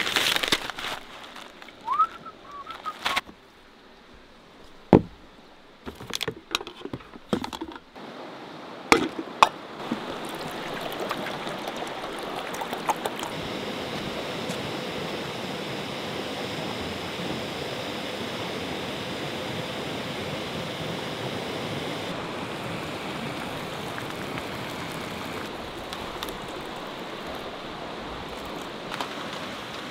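Knocks and crinkles of a freeze-dried meal pouch and gear being handled. Then, about ten seconds in, a Jetboil gas stove's burner sets in with a steady rushing hiss.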